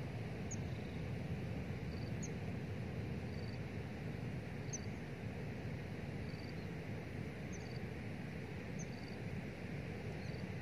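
Steady open-air background: an even rushing noise with faint, short, high animal chirps every second or two.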